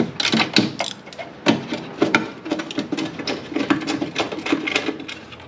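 Ratchet wrench clicking in quick runs with short pauses, backing out the mounting screws of a car's voltage regulator.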